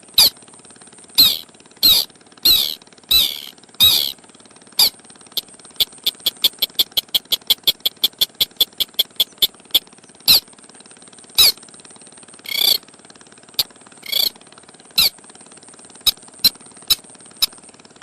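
Crake (sintar) lure call: sharp single notes that slide down in pitch, roughly one to two a second, then a quick run of short ticking notes for about four seconds, then scattered single notes again, over a steady high hiss.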